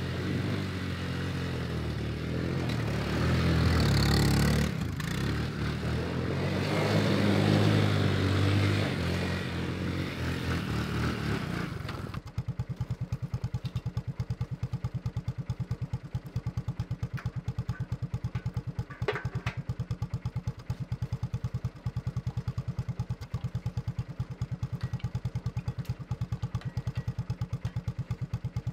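Honda ATC three-wheeler's engine revving up and down as it is ridden, with two louder pulls about four and seven seconds in. After a cut about twelve seconds in, the engine idles with a quick, even thumping, and there is a sharp clink near the middle.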